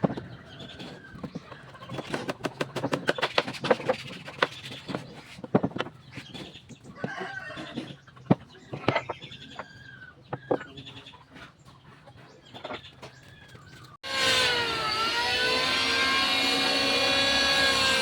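Irregular knocks and clicks of wood and tools being handled, then, about fourteen seconds in, an electric power tool's motor cuts in loud and steady, its pitch dipping briefly as it takes a load before holding level.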